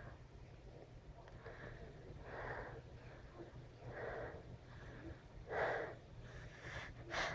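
A person's faint sniffs and breaths, four or five short ones spread a second or more apart, as a tickle in the nose builds toward a sneeze.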